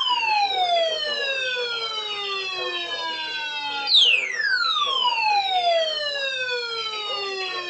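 Electronic emergency alert tone: several pitches slide slowly downward together from a high whistle to a low tone over about five seconds, and a new sweep starts about four seconds in, repeating like a falling siren.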